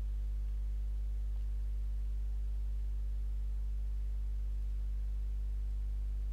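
Steady low electrical hum with a few even overtones, unchanging throughout.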